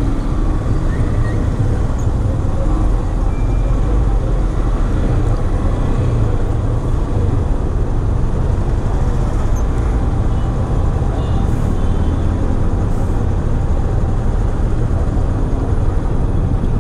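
Jammed road traffic heard from a slow-moving motorcycle: car, bus and truck engines running together as a steady low rumble.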